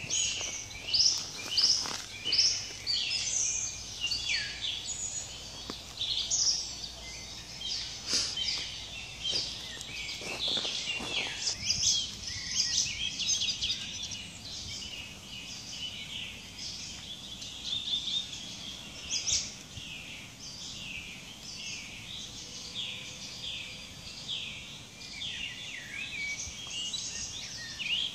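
Several songbirds singing together: a dense, overlapping chorus of short chirps and quick falling whistles.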